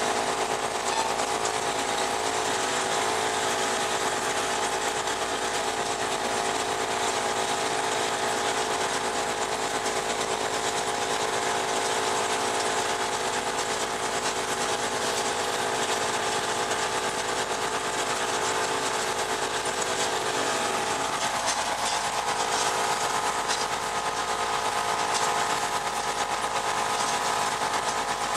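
John Deere 6200's four-cylinder diesel engine running steadily under load while pulling a working hay baler, with a constant mechanical rattle, heard from inside the tractor cab. The engine note dips slightly about two-thirds of the way through.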